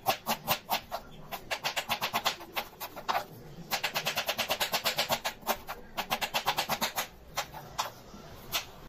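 Kitchen knife slicing a red onion on a wooden cutting board: quick knocks of the blade on the board, about six a second, in runs with short pauses about three seconds in and again near seven seconds.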